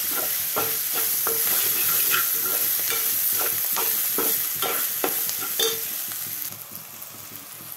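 Green chillies, onions and ginger-garlic paste sizzling in hot oil in a metal pan, stirred with a slotted metal spoon that scrapes and knocks against the pan about three times a second. The paste is being fried until its raw smell is gone. The stirring stops after about six seconds, leaving a softer sizzle.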